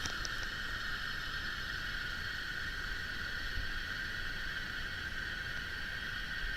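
Fidget spinner spinning freely on its ball bearing after a flick: a steady, even whir with a few small clicks right at the start.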